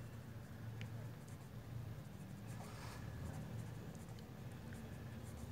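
Pen writing on paper, faint scratching strokes and small ticks as words are written out by hand, over a low steady hum.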